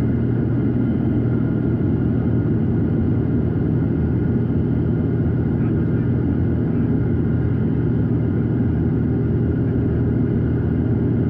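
Steady drone of a Piper PA-46 Malibu's engine and propeller in flight, even and unchanging.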